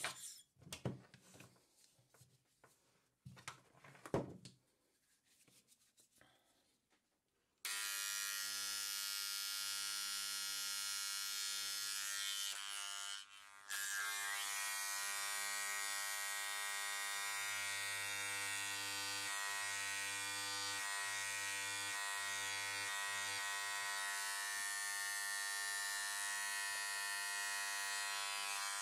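A few light scratches and taps, then about eight seconds in a hand-held vibrating scribe starts up with a steady buzz as its tip works the shale around a trilobite fossil, dipping briefly about thirteen seconds in before buzzing on.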